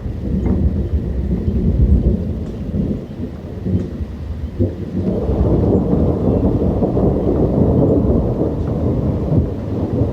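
Thunderstorm: low thunder rumbling over rain. The rumble swells into a longer, louder roll about halfway through.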